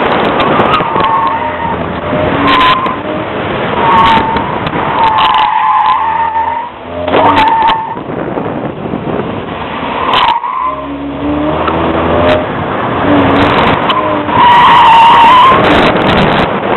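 Chevrolet Cavalier pushed hard through tight turns: tyres squealing again and again as they reach the edge of grip, the longest and loudest squeal near the end, while the engine revs up and down between corners.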